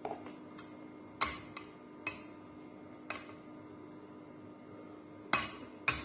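Metal spoon clinking against a glass bowl: a handful of short, sharp clinks spread out, the two loudest close together near the end.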